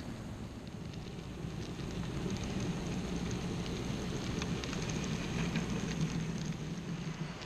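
Model diesel locomotive and its freight cars running past close by on the layout track: a steady electric-motor hum that swells as the train goes by, with faint clicking of wheels on the rails.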